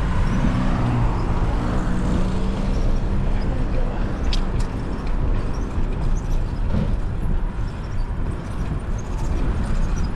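Wind rushing over the microphone of a moving bicycle, with road traffic passing close by; a vehicle's engine drones through the first few seconds.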